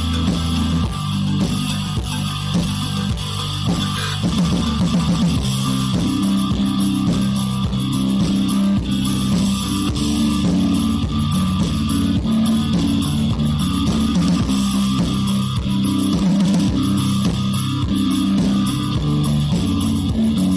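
Instrumental background music led by guitar over a bass line, with a steady beat.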